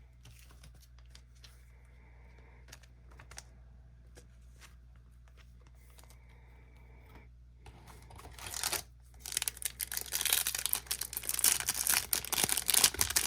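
Faint, scattered clicks of trading cards being handled, then from about eight seconds in the loud crinkling and tearing of a foil card-pack wrapper being ripped open.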